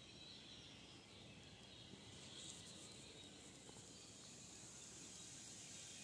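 Near silence: faint woodland ambience with a steady, high insect chorus.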